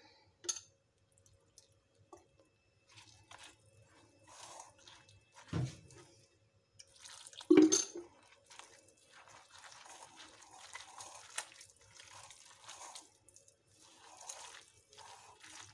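A hand mixing shredded vegetables and gram flour with splashes of water in a glass bowl: irregular soft wet squelching and rustling as the pakora batter is kneaded, with two louder knocks a couple of seconds apart near the middle.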